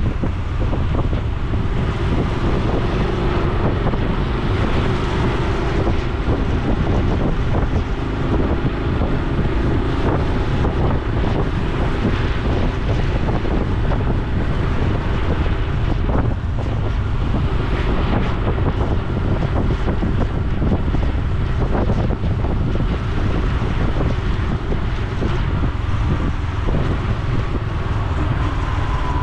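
Honda Super Cub C125's single-cylinder four-stroke engine and exhaust running steadily at a low cruising speed, mixed with steady wind noise on the microphone.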